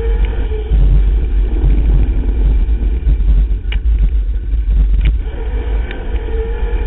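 Ride noise from an electric mountain bike descending a dirt trail: a heavy, continuous low rumble of wind and trail vibration on the bike-mounted camera's microphone. A few sharp clicks and rattles sound from the bike over the bumps, and a thin steady whine returns near the end.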